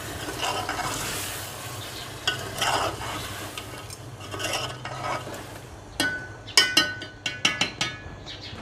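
Quail pieces sizzling in a hot karahi while a metal spoon stirs and scrapes through them. About six seconds in come several sharp, ringing clinks of the spoon against the metal pan.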